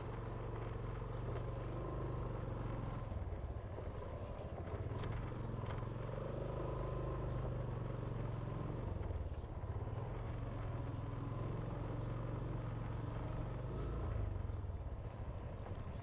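Small motorbike engine running at an easy cruise, its low hum dipping and rising a little in pitch with speed.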